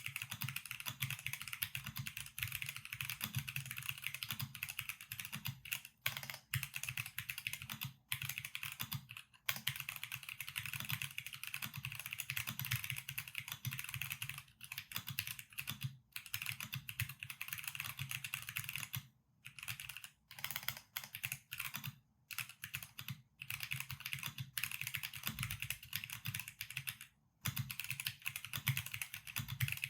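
Steady fast typing on a custom mechanical keyboard with factory-prelubed Gateron Limbo switches, a 5mm polycarbonate plate and PBT keycaps. The keystrokes run continuously, with short pauses several times.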